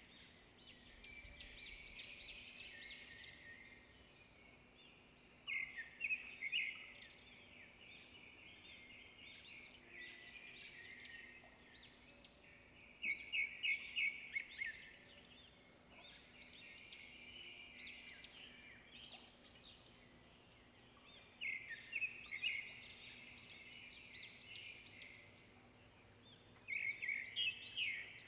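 Birdsong: bouts of rapid, high chirps and trills that come back about every seven or eight seconds, with softer chirping between them, over a faint steady hum.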